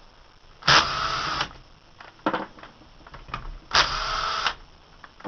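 Two short bursts of a tool spinning out the two 7/16 bolts, one about a second in and one about four seconds in, with small clicks between.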